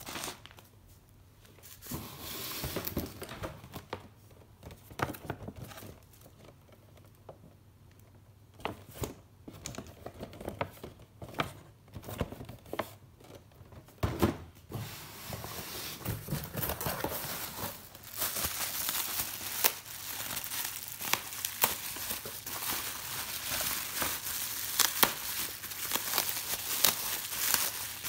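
Packaging crinkling and tearing as it is handled and opened by hand. At first there are scattered rustles and clicks; from about halfway it becomes dense, continuous crinkling.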